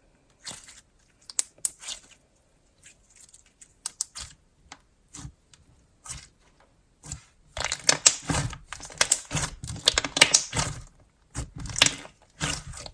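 Slime being squished and stretched by hand, making sticky clicks and small pops, sparse at first and then a dense crackling run in the second half.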